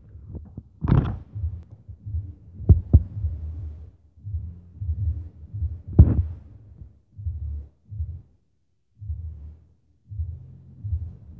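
Muffled low thumping coming through the apartment ceiling in uneven pulses, with a few sharper knocks; the loudest knock comes about halfway through. This is the neighbour noise the resident is recording as harassment.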